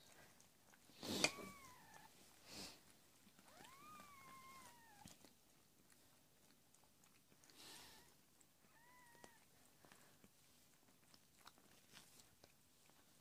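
A cat mews quietly three times in short high-pitched calls, about a second in, around four seconds in and near nine seconds, amid soft licking and rustling. A rustle with the first mew is the loudest sound.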